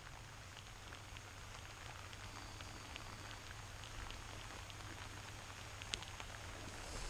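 Faint, steady rain falling on grass, with scattered small ticks of individual drops and one sharper click about six seconds in.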